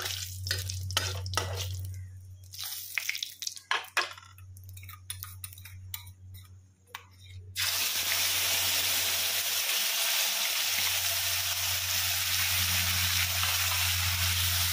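A metal spatula scrapes and taps an aluminium kadai while whole spices (fennel seeds and a bay leaf) sizzle quietly in hot oil. About halfway through, onion paste is tipped in from a steel bowl, and the oil breaks into a loud, steady sizzle. A low hum runs underneath throughout.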